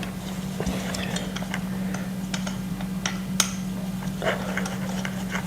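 Scattered light clicks and ticks of metal screws and parts being handled while M6 screws are hand-threaded into a gaming chair's metal frame, over a steady low hum.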